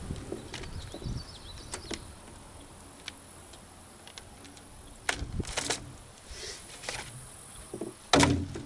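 Scattered clicks and light knocks of a fishing rod, reel and line being handled while weeds are picked off a drop-shot rig, with a louder cluster of knocks a little after five seconds in and again near the end.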